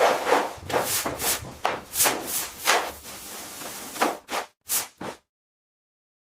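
Repeated rubbing strokes, about two a second, that cut off suddenly about five seconds in.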